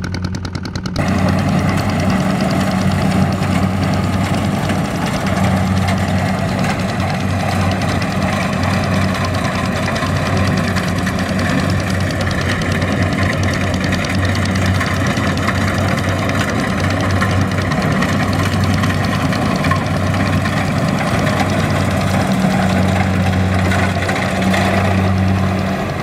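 Engine of a rice-harvesting tractor running steadily with a low hum and the noise of its working machinery, louder from about a second in.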